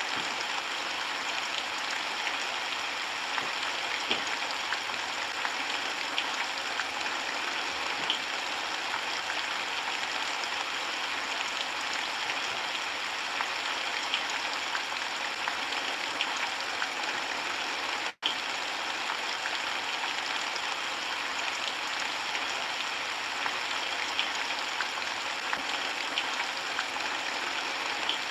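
Steady rainfall: an even hiss with scattered small drop ticks. It cuts out for a split second about two-thirds of the way through, then carries on unchanged.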